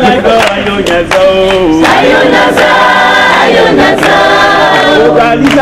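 A group of voices singing a Christian praise song together in chorus, with handclaps keeping time.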